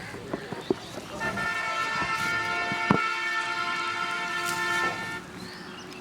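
Vehicle horn sounding one long, steady blast of about four seconds, starting about a second in, with a few sharp clicks around it.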